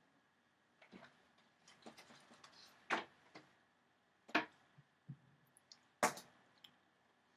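Small objects being picked up and put down on a wooden cabinet: a scattered series of clicks and light knocks, the three loudest about a second and a half apart.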